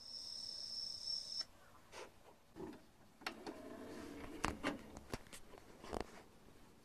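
A steady high tone stops with a click about a second and a half in. Then the Sony CDP-591 CD player's disc tray mechanism works: a motor whirs while the tray moves, with several sharp clicks and clunks.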